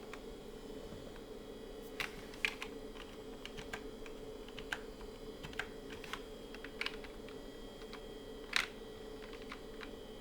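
Scattered single keystrokes on a 1994 Compaq Enhanced Keyboard, a rubber-dome board: about a dozen separate clicks at uneven intervals, the loudest near the end, over a faint steady hum.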